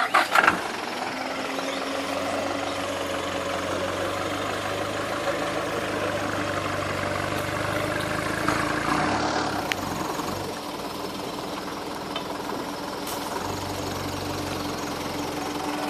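A truck's engine starts up about half a second in, then runs steadily at idle.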